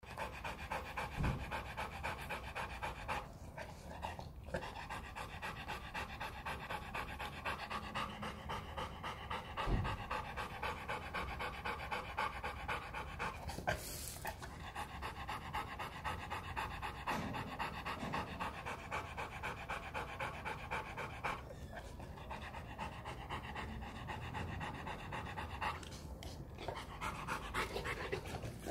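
Rottweiler panting fast and steadily, mouth open and tongue out.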